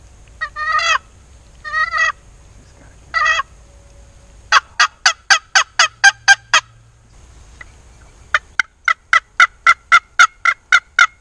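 Turkey yelping: three short, wavering calls, then two fast runs of loud, sharp yelps at about five a second, the second run starting about eight seconds in.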